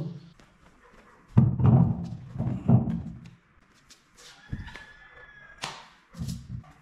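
A series of heavy, low thuds: one at the start, a quick cluster from about one and a half to three seconds in, and another near the end. A faint thin tone sounds around five seconds in.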